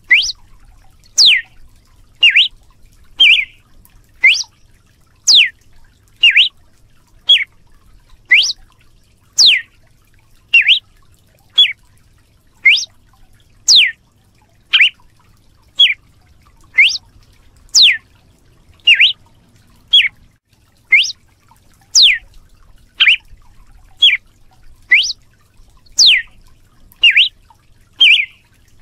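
Red-cowled cardinal (galo-de-campina) giving its whip-like 'açoite' song: a long series of sharp, loud whistled notes about once a second, some sweeping upward and some sweeping downward.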